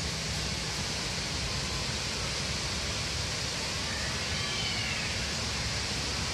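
Strong wind blowing through trees: a steady rush of leaves and branches with a low rumble.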